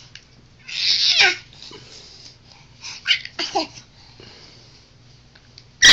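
A nine-month-old baby squealing and babbling in short high bursts that fall in pitch: one about a second in, a couple around three seconds, and the loudest near the end.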